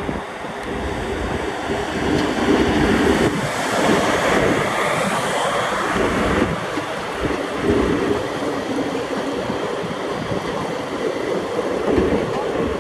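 WCAM-3 electric locomotive running past at a slow, sedate pace, followed by its passenger coaches rolling by on the track. The sound grows louder over the first couple of seconds as the train draws level, then holds as a steady rumble.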